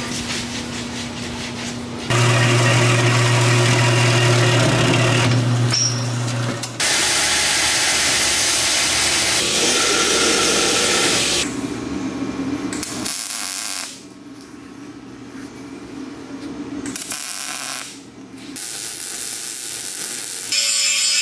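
Metal-shop tool sounds in quick cuts: a power tool's motor running with a steady hum, a belt grinder grinding a small steel part, and arc welding near the end.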